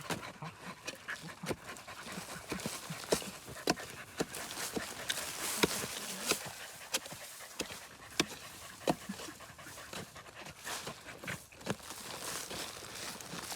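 A dog panting, with many irregular sharp clicks scattered through it.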